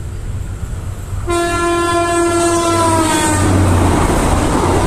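Horn of a passing yellow rescue railcar train sounding one long blast about a second in, its pitch dropping as it goes by, then the rumble of the train passing close.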